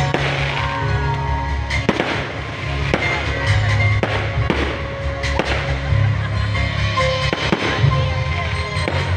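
Fireworks display: a string of sharp bangs from bursting shells, roughly one or two a second, heard over music with a steady bass.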